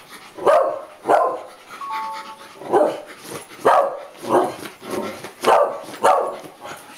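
Small dog barking repeatedly: about eight sharp barks, each under a second apart.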